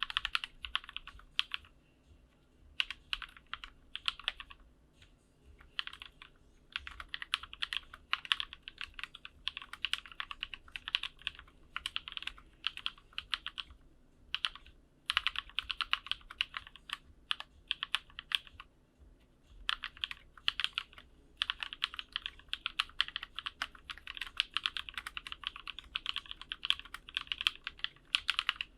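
Typing on a Barleycorn through-hole custom mechanical keyboard, built with no plate and no foam, with lubed and filmed Halu Cream switches (HaluHalo housings with NovelKeys Cream stems) and GMK Olivia-style keycaps. Runs of rapid keystrokes are broken by short pauses.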